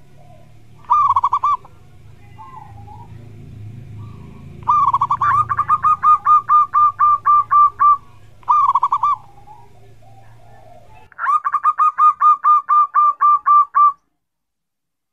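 Zebra dove (perkutut) singing its 'kuk' song. Short opening coos alternate with two long runs of about ten rapid, evenly spaced 'kuk' notes each. The sound cuts off abruptly near the end.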